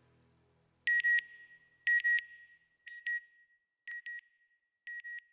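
Faint background music dying away, then an electronic double beep repeated about once a second, five times, growing quieter after the first two: a synthetic end-card sound effect.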